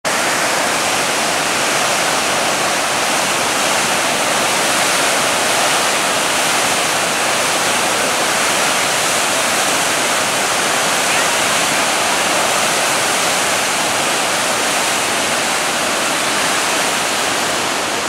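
Mississippi River water pouring through the open gates of a dam spillway and churning into white water below: a loud, steady rush.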